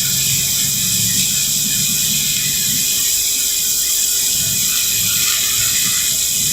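TIG welding arc from an AHP AlphaTIG 200x running steadily as a bead is laid: a continuous high-pitched hiss and buzz.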